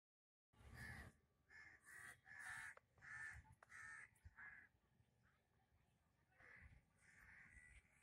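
Crows cawing, faint: a quick run of about seven caws in the first few seconds, then a few more near the end.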